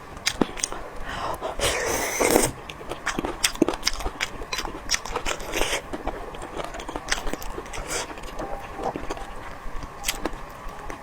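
Close-miked eating of spicy boneless chicken feet: a steady run of chewing, biting and mouth clicks and smacks, with a louder, denser stretch about two seconds in.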